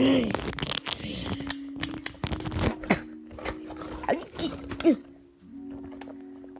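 A young child's short squeaky rising-and-falling vocal noises, one near the start and two about four and five seconds in, over rustling and bumping from handling plush puppets close to the phone. Steady held notes of background music run underneath.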